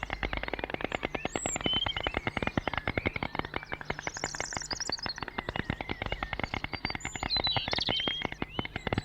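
A flock of small birds chirping and chattering together: a dense stream of quick, sharp, repeated calls with higher chirps and short whistled notes mixed in.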